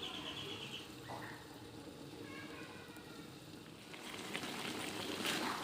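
Faint sizzling and bubbling of chicken curry cooking in a covered pot after water has been added, getting louder near the end.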